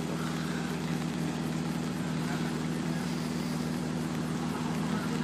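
Helisport CH-7 Kompress ultralight helicopter running on the ground with its main rotor turning: a steady, even engine-and-rotor hum.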